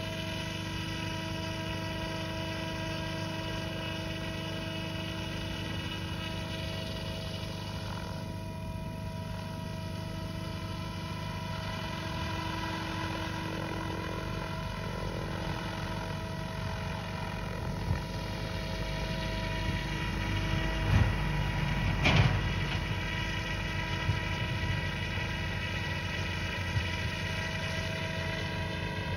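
Radio-controlled F3C competition model helicopter hovering and flying slow manoeuvres, its rotor and power plant giving a steady buzzing tone with several pitched layers. Its pitch holds nearly level. A couple of sharp knocks come about three-quarters of the way through.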